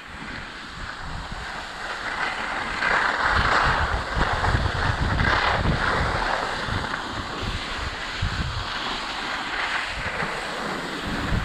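Wind buffeting the microphone while skiing downhill at speed, with skis hissing and scraping over packed snow. The noise swells for a couple of seconds about three seconds in and again around the middle.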